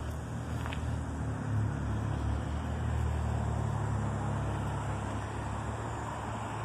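Steady low rumble of outdoor background noise, with no distinct motor tone.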